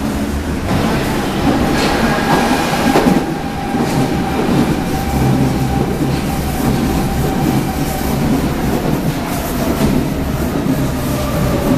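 Berlin U-Bahn Type G subway train in motion, heard from inside the car: steady rumble with wheels clattering over the rail joints. Over it runs a high whine that sinks a little in pitch toward the end.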